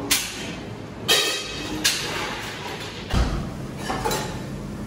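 Café counter clatter: a barista's clinks and knocks of cups and equipment over a noisy room background, with a heavier low thud about three seconds in.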